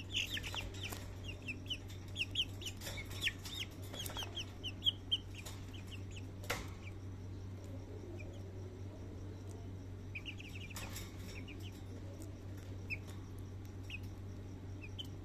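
White bantam chickens giving rapid runs of short, high chirping calls, busiest in the first five seconds and again briefly about ten seconds in, over a steady low hum.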